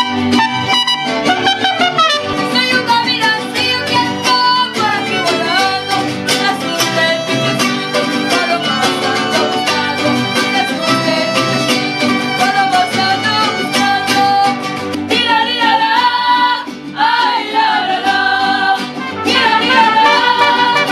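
Mariachi ensemble playing, with violins and guitars carrying the melody.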